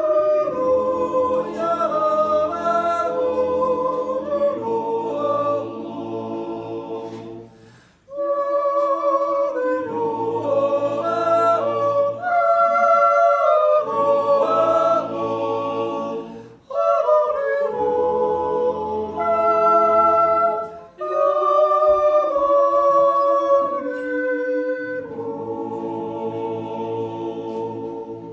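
Swiss yodel-club men's choir singing unaccompanied in close harmony, long held chords in phrases. There are three short breaks for breath between phrases, and the final chord dies away at the end.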